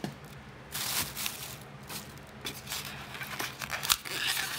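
Plastic bag crinkling and rustling as it is pulled off a hose reel, in irregular bursts with a few light knocks. Near the end a styrofoam packing block is handled and pulled away.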